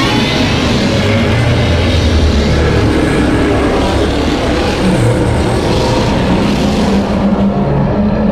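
A Godzilla film sound effect: a loud, dense rumbling noise with a low hum underneath, starting abruptly and holding steady.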